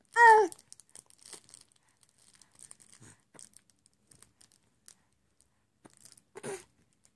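Baby cooing: a short, high, falling coo right at the start and another about six and a half seconds in, with faint rustling between.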